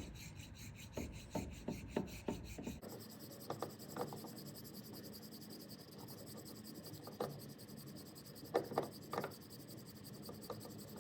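Smooth hand file scraping over cured JB Weld epoxy on an outboard propeller shaft in short, irregular strokes, knocking down the high spots of a seal-groove repair.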